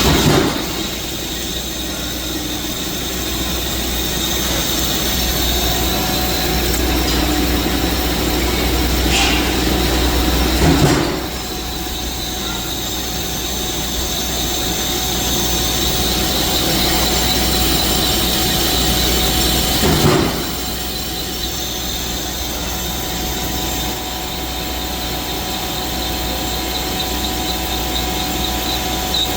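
Metal lathe turning metal: a steady machine hum with a high, ringing tone. Three brief louder surges come about ten seconds apart.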